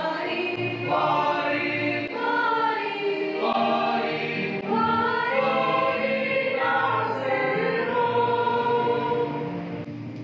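Mixed choir of women's and men's voices singing a Tamil Christmas carol together.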